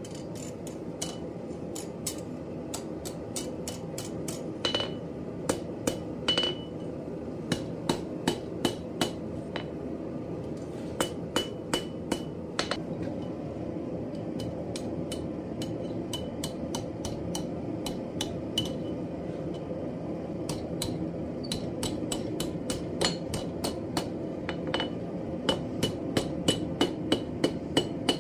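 Blacksmith's hammer striking 1/4-inch round bar stock on an anvil: irregular blows, many with a short bright ring, coming in a quicker run near the end. A steady low rushing noise runs beneath.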